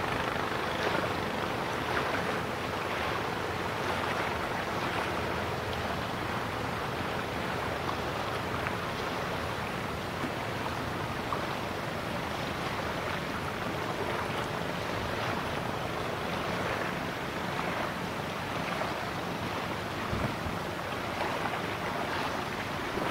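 Steady rush of wind on the microphone over open river water, with a faint steady hum through the first several seconds.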